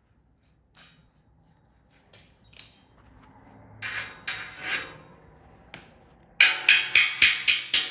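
Metal parts being worked by hand while a new saw tooth and rivet are fitted into the saw plate: a few light clicks, some scraping and rubbing, then a quick run of sharp metallic taps, about five a second, near the end.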